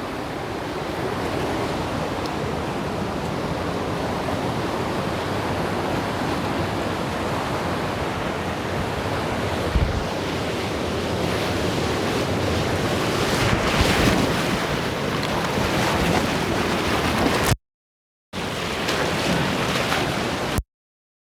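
A waterfall rushing steadily, heard close to the falls. The sound drops out to silence twice, briefly, near the end.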